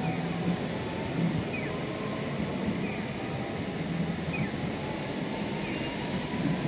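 Steady traffic noise at a city tram intersection, cars and a distant approaching streetcar, with short high chirps repeating about every second and a half.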